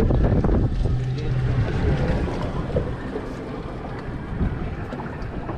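Wind buffeting the microphone aboard a small boat at sea, a heavy low rumble, with a brief low steady hum about a second in.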